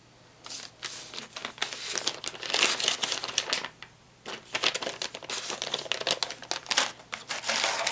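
Clear plastic lure bag crinkling as soft plastic baits are slid back into it and the bag is handled, in irregular bursts with a short lull about halfway through.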